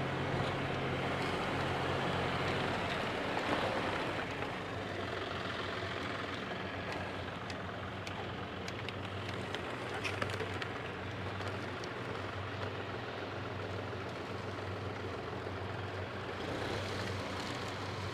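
Diesel engine of a tractor-mounted front loader with a bale grabber running steadily as the machine drives and lifts a compressed bottle bale. It runs a little higher and louder for the first few seconds, then settles lower, with a few light knocks near the middle.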